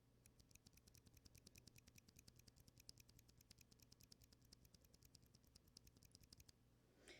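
Zeal Aqua Zilents silent tactile mechanical keyboard switches being pressed over and over. Very faint, soft, rapid clicks come about eight a second and stop about six and a half seconds in.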